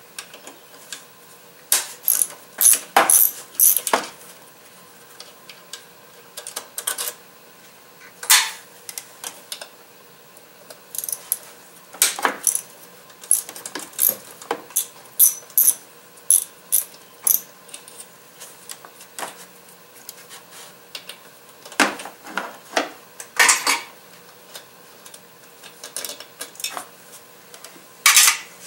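Ratchet wrench clicking in short, irregular spells, with metal clinks from the tool and bolts, as the throttle body's retaining bolts are undone.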